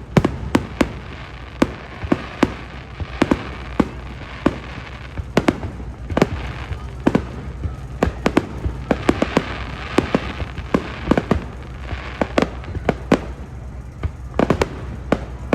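Fireworks display: an irregular, unbroken run of sharp bangs and pops, about two a second.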